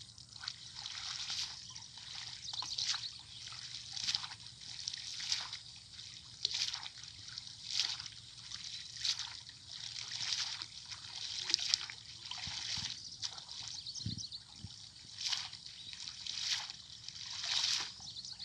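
Shallow river water sloshing and splashing in a loose rhythm, about one splash a second, as a man wading in it works a fishing net through the water with his hands.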